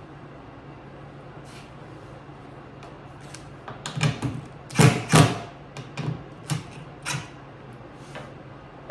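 A run of sharp clacks and knocks from hard plastic crate parts being handled, the two loudest close together about halfway through, over a steady low hum.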